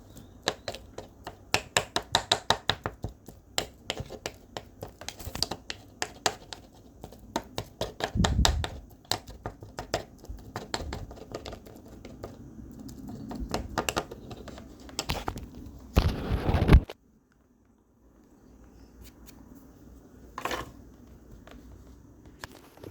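Rapid scratching and tapping clicks with some crinkling, in quick irregular runs with a few heavier thumps, stopping abruptly about seventeen seconds in; after that only faint room sound with one brief rustle.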